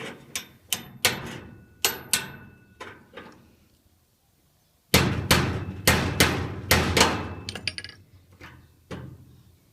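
Hammer blows on a seized Master Lock padlock, metal ringing after several strikes. A first run of about seven sharp knocks, a short pause, then a louder, quicker run of heavy blows that tails off into a few lighter taps near the end.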